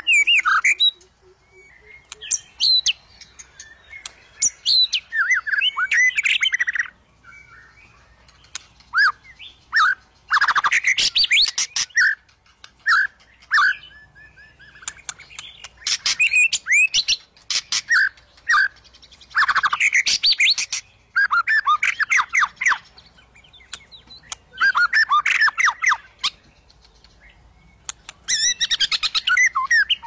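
Male white-rumped shama (murai batu) singing: loud bursts of rapid, varied whistles mixed with harsher chattering notes, each burst a second or a few seconds long, separated by short pauses.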